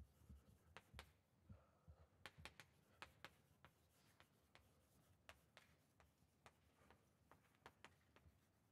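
Chalk on a blackboard: a faint, irregular series of short taps and scratches as words are written.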